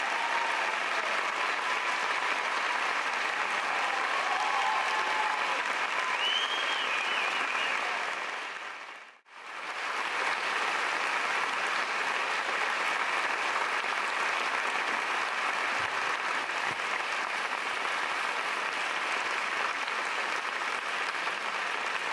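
Large audience applauding steadily. The applause drops out briefly about nine seconds in, then carries on at the same level.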